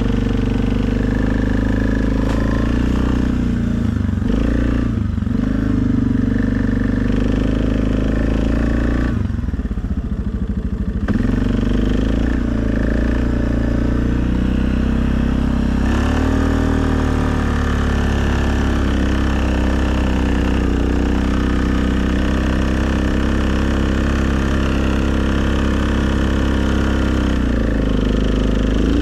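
2020 Suzuki KingQuad ATV's single-cylinder engine running under throttle while plowing snow. Its pitch rises and falls with the throttle and drops back twice, briefly about four seconds in and for about two seconds around ten seconds in.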